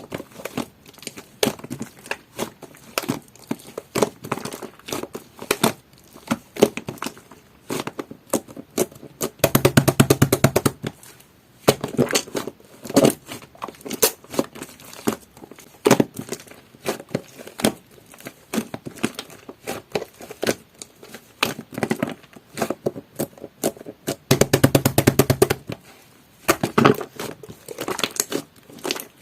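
Jelly-textured slime being squished, poked and stretched by hand, giving a stream of wet clicks and small pops, with two louder stretches of fast squishing about ten seconds in and again later on.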